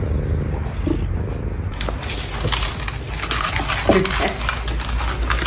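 A pet animal gives one short call that slides down in pitch about four seconds in. Over a steady low hum there is crackling and clicking from about two seconds in.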